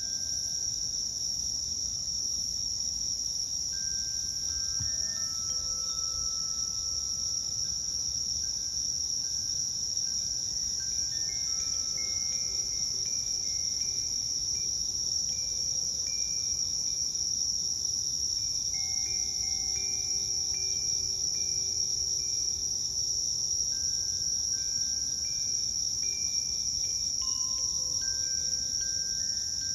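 Insects chirping in a steady high-pitched chorus, with soft, sustained notes of a Koshi Terra chime ringing out now and then and overlapping in the middle.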